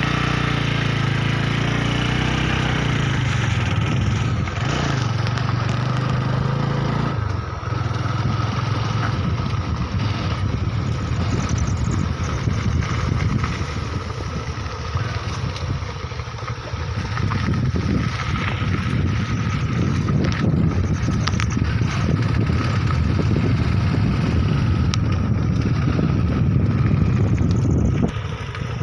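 A motor vehicle engine running steadily, with a change in its note about seven seconds in and a drop in level just before the end.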